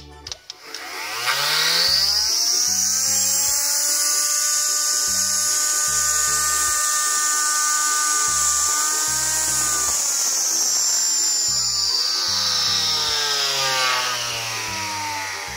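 Small electric motor of a homemade mini table saw spinning up its toothed saw blade and running free with no wood in the cut: a high whine that rises quickly in pitch at the start, holds steady, and falls in pitch near the end as the motor slows.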